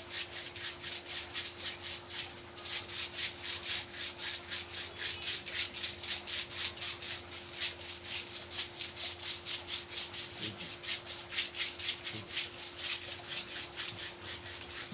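Rapid rhythmic rubbing of massage strokes on skin, about three strokes a second, over a faint steady hum.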